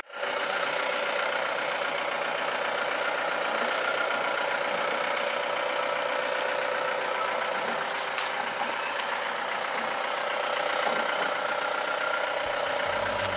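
Safari jeep's engine running steadily as the vehicle crawls along a rough dirt track, with a brief clatter about eight seconds in.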